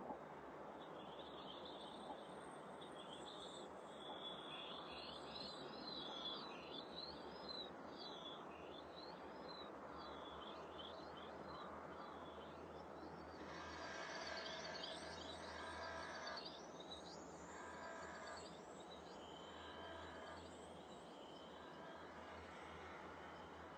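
Small garden birds chirping and twittering at feeders over a steady background hiss. About halfway through, the calls grow busier, and a lower call is repeated several times.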